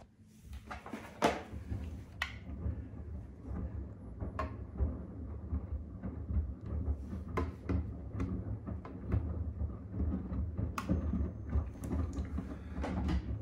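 Front-loading washing machine drum turning mid-wash: a low motor rumble with the laundry tumbling and scattered clicks and knocks, starting about half a second in.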